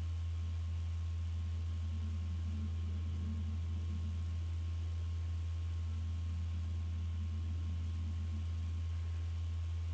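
Steady low electrical hum in the recording, unbroken throughout, with a faint thin high tone above it.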